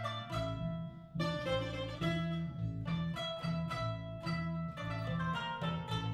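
Small ensemble of plucked strings, a mandolin and a kanonaki (qanun), playing a tune in quick, rhythmic plucked notes over a steady pulsing bass line. There is a brief dip about a second in before the playing carries on.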